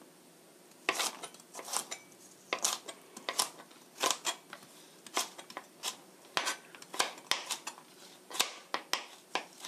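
Chef's knife slicing a carrot on a plastic cutting board: sharp, irregular knocks of the blade on the board, about two a second, starting about a second in.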